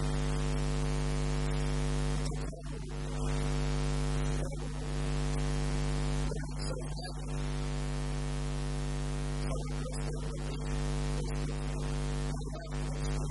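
Loud, steady electrical mains hum and hiss, with a man's voice faint beneath it.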